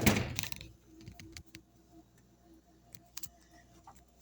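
A brief burst of rustling at the start, then scattered light clicks and taps over a faint steady hum.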